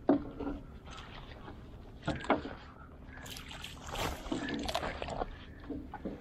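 Irregular knocks and splashing around a small boat on the water, with the loudest knocks just after the start and about two seconds in.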